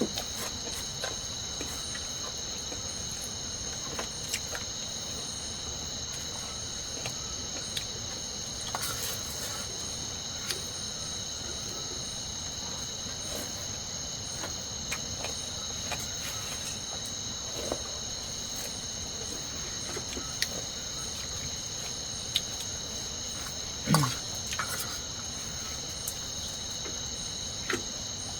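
Steady chorus of crickets or similar insects, several high unbroken tones running together, with scattered small clicks and a louder knock about 24 seconds in.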